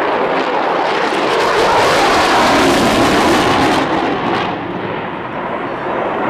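Jet noise from an F-22 Raptor's two turbofan engines as the fighter flies a low display pass: a loud, dense rushing sound. About four and a half seconds in it loses its hiss and drops, then builds again near the end.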